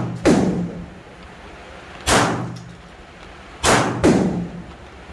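9mm gunshots: four shots fired at an uneven pace, the last two close together, with another right at the end, each followed by a short echo.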